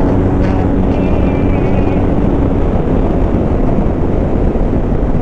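A motorcycle on the move: a steady engine drone under a heavy rush of wind across the microphone.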